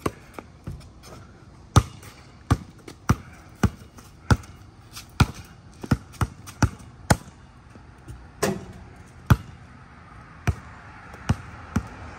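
A basketball dribbled on a concrete driveway: sharp, separate bounces at an uneven pace, about one to two a second.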